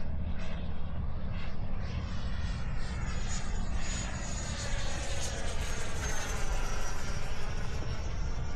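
Electric ducted-fan RC jet flying past with a high whine that sweeps in pitch as it passes, loudest near the middle. Gusty wind rumbles on the microphone throughout.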